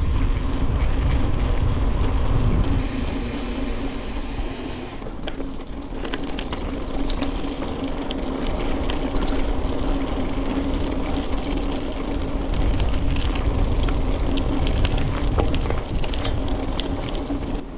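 Bicycle in motion: a steady tyre hum with rattling and clicking from the bike, over a heavy low rumble of wind on the microphone. The hum drops away for a couple of seconds about three seconds in.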